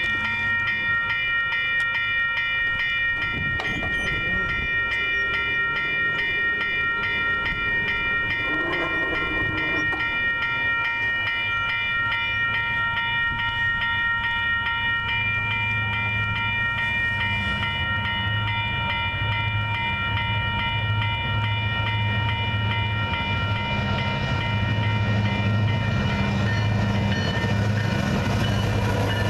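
Railroad grade-crossing bell ringing steadily with rapid repeated strikes. From about halfway through, a freight train's low rumble comes up beneath it and grows louder as the tank cars roll past the crossing near the end.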